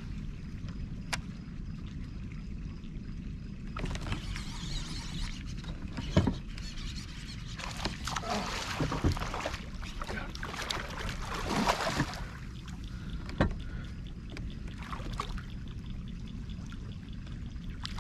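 A hooked fish thrashing and splashing at the water's surface beside a kayak during the fight, in a dense spell of splashing through the middle with several sharp knocks among it, over a steady low rumble.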